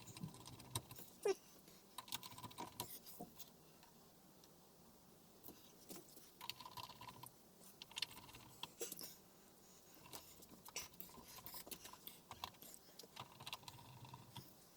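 Faint, scattered clicks and taps of TV parts being handled and fitted back together, with a quieter lull a few seconds in.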